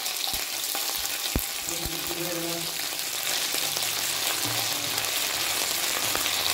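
Sliced onions, green chillies and ginger-garlic paste sizzling in hot oil in a frying pan while being stirred with a plastic spoon. There are a few soft knocks in the first two seconds.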